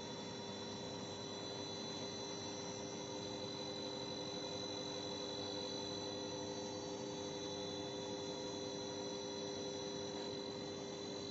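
Steady machinery hum: several constant whining tones over an even hiss, with no beat or knocking.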